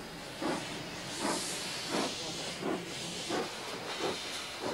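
Steam locomotive hissing steam, with short, even chuffs about every two-thirds of a second over the steady hiss.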